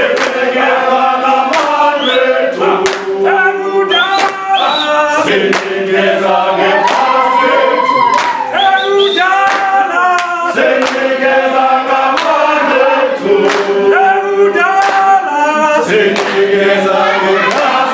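A group of voices singing together unaccompanied, holding and moving notes in harmony, with a sharp beat roughly once a second.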